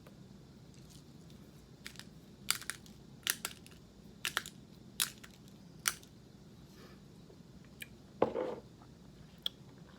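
A string of short, sharp crunches, spaced irregularly about half a second to a second apart, as whole peppercorns and coarse sea salt from a coffee-and-peppercorn spice blend are cracked. About eight seconds in comes one longer, louder low sound.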